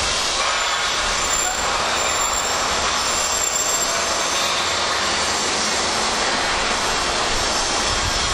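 Steady, even machinery noise with a strong hiss and no distinct beats or knocks.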